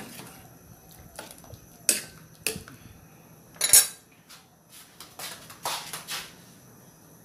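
A metal utensil clinking against a stainless-steel soup pot in a string of irregular knocks. The loudest comes about halfway through, and a quick cluster follows later on.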